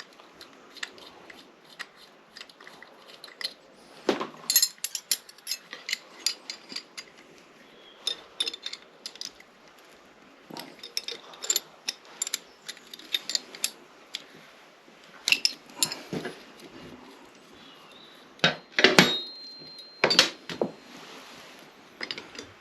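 Hand tools and small metal engine parts clicking and clinking in irregular bursts, with a few sharper knocks and a brief metallic ring near the end.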